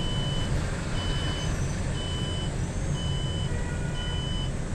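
A city bus's electronic warning beeper sounds five short, high beeps, about one a second, over the steady rumble of the bus's engine and tyres.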